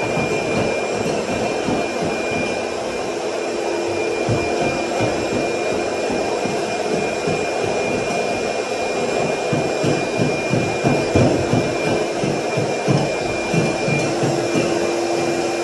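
Shop vacuum running steadily with a whine, sucking debris off a bare subfloor, with irregular knocks and clatter of debris and a floor tool throughout.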